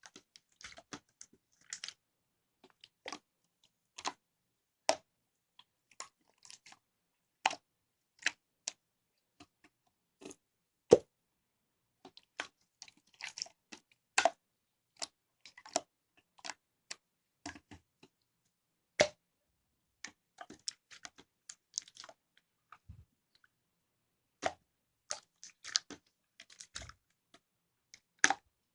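Slime being squeezed and kneaded by hand, giving irregular sticky clicks and small pops, a few each second with short pauses between.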